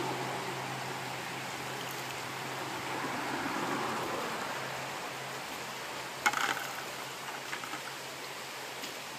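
Shallow creek water running steadily over a riffle. About six seconds in there is a brief, sharp clatter, followed by a few lighter clicks.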